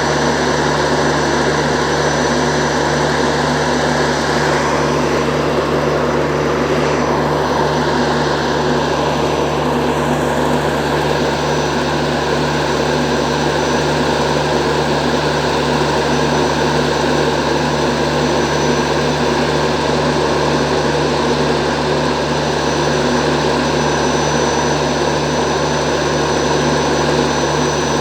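WAG-9 electric locomotive's onboard machinery running with a steady, even hum and a thin high whine over it.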